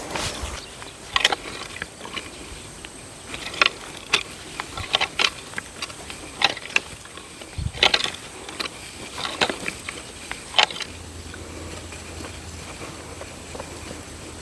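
A series of short, sharp knocks and scrapes at irregular intervals, about a dozen in ten seconds, then a faint low steady hum near the end.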